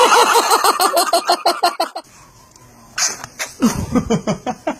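A small child's rapid, high-pitched laughing squeals for about two seconds. About three seconds in comes a short, noisy sneeze, followed by a run of lower-pitched laughter.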